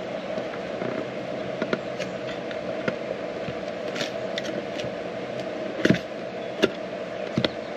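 Scattered small clicks and taps from handling a plastic multimeter case and its battery and fuse covers, the sharpest about six seconds in and two close together near the end, over a steady background hum.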